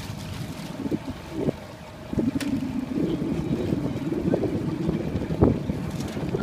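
Wind buffeting the microphone over open water, with water splashing around small sailing dinghies passing close by. A few short knocks stand out about a second in, half a second later, and again near the end.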